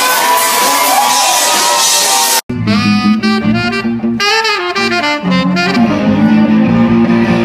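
Loud live music with crowd noise, which cuts off abruptly about two and a half seconds in. A saxophone then plays a melody over a band with electric guitar and low bass notes.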